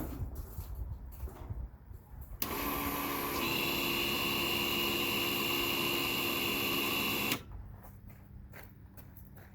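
Electric winch motor running for about five seconds, a steady whine that starts and stops abruptly, pulling an ATV onto a trailer. A few light knocks come before it.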